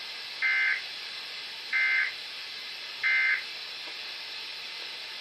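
Three short, shrill electronic data bursts about 1.3 seconds apart over steady radio hiss: the SAME end-of-message tones of a weather radio alert broadcast, marking the end of the alert message.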